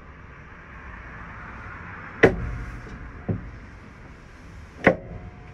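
Toyohashi Railway tram running along the line with a steady rolling rumble. Three sharp clunks from the wheels knocking over rail joints come about two seconds in, a softer one a second later, and another near the end.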